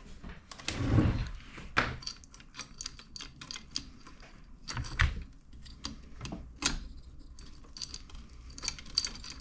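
Metal engine parts and hand tools being handled on a workbench: irregular sharp clicks and clinks, with a couple of heavier thuds, about one and five seconds in.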